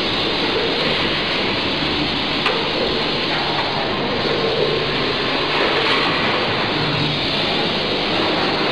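Steady mechanical din of packaging machinery running, with a sharp click about two and a half seconds in.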